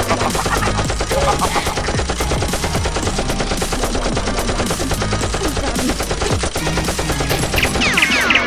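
Rapid machine-gun fire sound effects, a dense stream of shots without a break. A few high falling whistles come in near the end.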